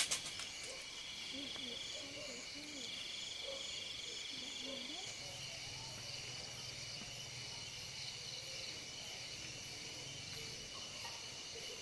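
Insects chirring steadily outdoors, with a pulsing high trill in the first few seconds, and faint distant voices early on.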